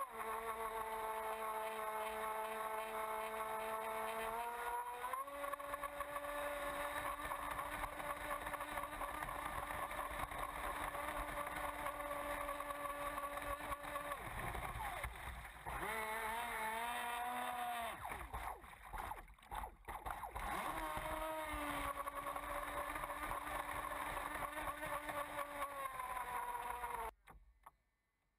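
Miss Geico RC racing catamaran's motor running at speed, heard from on board over the hiss of spray, its pitch stepping up about five seconds in. Midway the sound dips and breaks up for a few seconds before the steady pitch returns, and near the end it falls away and cuts off.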